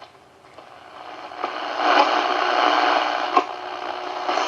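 Hallicrafters SX-100 receiver's loudspeaker tuned slightly off a strong local AM broadcast station. Near silence gives way to a noisy, garbled signal that builds from about a second in and is loud by about two seconds, with a couple of clicks. It is a local station overdriving the receiver.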